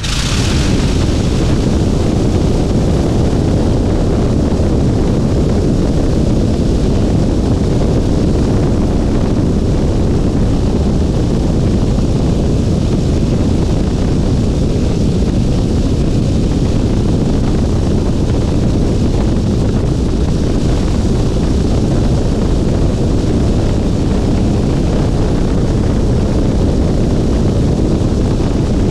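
Nieuport 23 C-1 biplane's engine, just started, running steadily, with the propeller wash buffeting the microphone.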